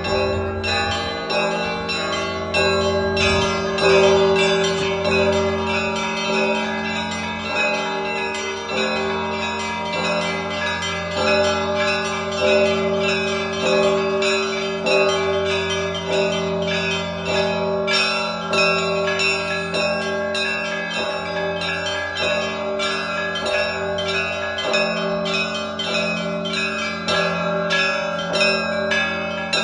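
Russian Orthodox church bells rung in a festive trezvon: small bells struck rapidly in a busy rhythmic pattern over the ringing of a large low bell, continuous and without pause.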